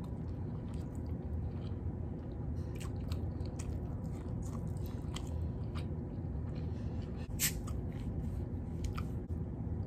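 Close-miked mouth sounds of a person biting and chewing a piece of salmon: scattered wet clicks and smacks over a steady low hum, with one sharper click about seven seconds in.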